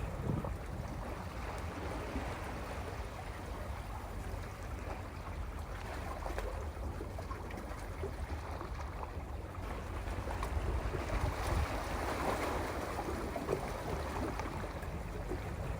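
Sea waves washing over a rocky shore, a continuous fizzing wash that swells louder for a few seconds near the end as a bigger wave comes in.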